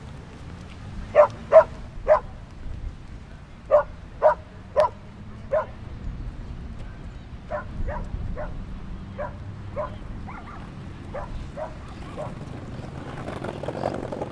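A dog barking repeatedly in short runs of three or four barks. The barks are loudest in the first few seconds and grow fainter later on.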